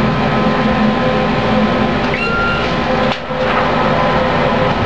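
Elevator car running: a steady mechanical rumble and hum inside the cab, with a brief high tone about two seconds in.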